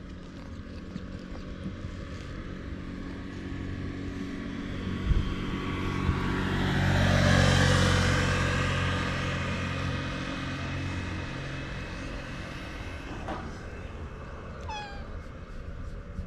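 A motor scooter's small engine passes by, rising to a peak and fading away over several seconds. Near the end a cat gives one short meow.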